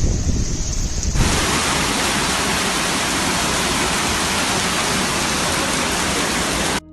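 Heavy rain pouring down in a steady hiss. About a second in, the sound cuts to a brighter, denser downpour that holds steady until it drops out briefly at the end.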